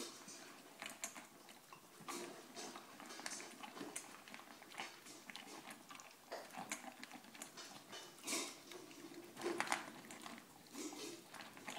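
A dog crunching and chewing dry kibble from a stainless steel bowl, in irregular faint crunches a few times a second.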